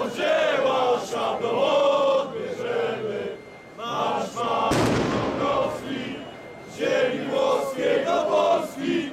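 Large crowd of marchers chanting in unison, in phrases with short pauses between them. A single sharp bang cuts through about halfway through.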